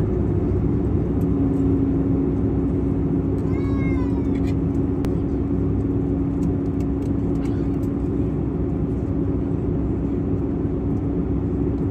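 Steady jet airliner cabin noise in cruise: a constant low rush with a steady hum. About four seconds in, a short high cry falls in pitch.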